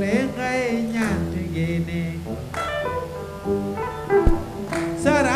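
Live band playing a Soninke song: electric guitar phrases over a steady bass line, with a melodic vocal or guitar line bending in pitch in the first second and again near the end. A single sharp click about four seconds in.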